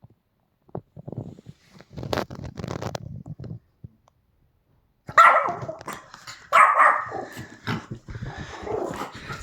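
Pomeranian barking. Quieter low sounds come in the first few seconds, then two loud barks about halfway through, followed by more, weaker barking.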